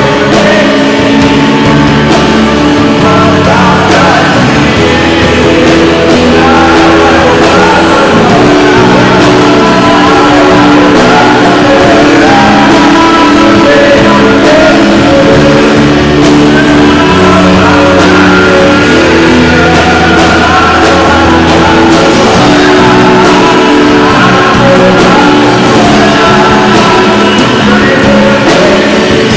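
Live worship band playing a rock-style praise song with singing over guitar, loud and unbroken throughout.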